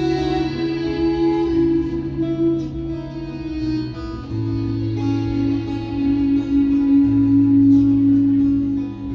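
Acoustic and electric guitars playing an instrumental passage of a song, with long held notes.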